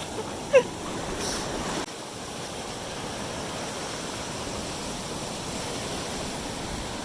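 Small waves washing in the shallows, a steady hiss of surf. About half a second in there is a short loud call that falls in pitch.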